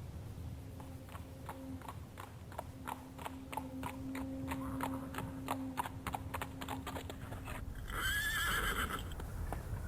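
Horse hooves clip-clopping in a steady rhythm, about three beats a second. Near the end the hoofbeats stop and a horse whinnies loudly.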